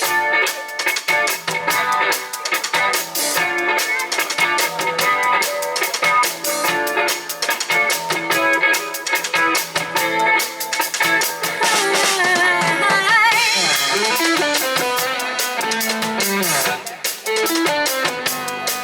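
Live rock band playing an instrumental passage: electric guitar over a drum kit, with a wavering bent guitar note about twelve seconds in.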